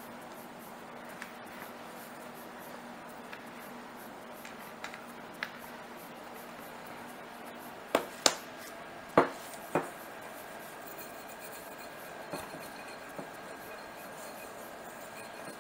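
Hands kneading soft pretzel dough on a floured plastic board, with faint rubbing and pressing. Four sharp knocks about eight to ten seconds in come from hands and dough striking the board.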